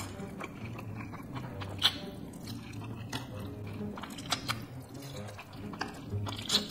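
Spicy instant noodles being slurped and chewed: a run of wet sucking and smacking sounds, with a sharper slurp about two seconds in and another near the end.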